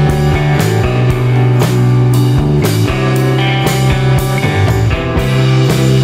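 Rock music with guitar and drums, a steady beat of about two strikes a second.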